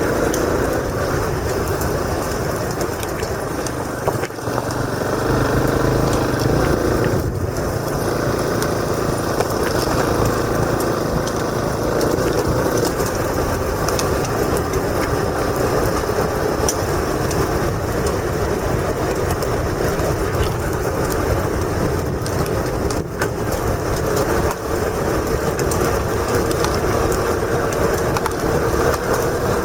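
Motorcycle engine running steadily while riding, heard from a helmet-mounted camera with heavy wind and road noise over it. The engine sound dips briefly a few times.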